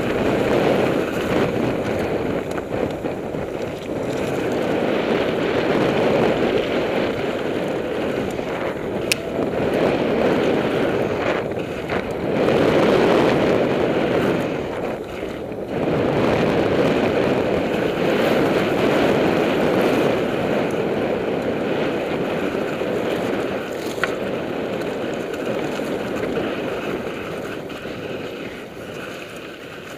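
Mountain bike tyres rolling fast over loose desert dirt and gravel, with wind rushing over the microphone and a few sharp rattling clicks from the bike; it fades near the end.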